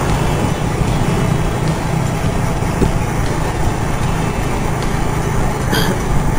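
Steady riding noise from a Honda automatic scooter under way on the road: engine drone mixed with wind rush, keeping an even pace.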